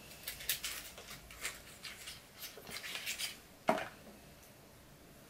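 Small cosmetic products and their packaging handled on a tabletop: a run of light clicks and clatters, then one louder knock almost four seconds in.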